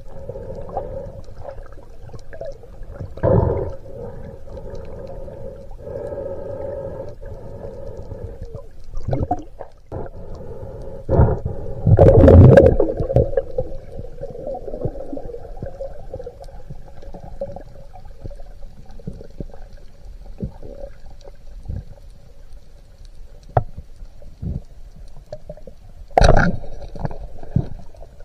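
Underwater sound on a spearfishing dive over a reef: a steady droning hum with a held tone, broken by several rushes of water noise, the biggest about halfway through. Near the end a sharp crack as the speargun is fired and the spear strikes the reef.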